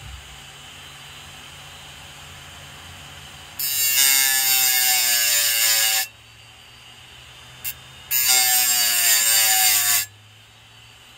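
Steel putty-knife blade pressed twice against a sandpaper disc spun by a 3.5-inch 5400 RPM hard-drive spindle motor: a loud harsh grinding for about two seconds each time, with a tone inside it that falls in pitch while the blade is held on. Around the two contacts is the spinning disc's steady quiet hiss, with a short click between them.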